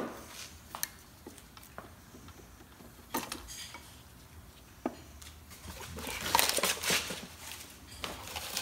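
Metal brake parts and pads handled on a wooden workbench: a sharp clink at the start, then scattered light clicks and clinks. About six seconds in comes a longer stretch of rustling and clatter, with hands rummaging in a cardboard parts box.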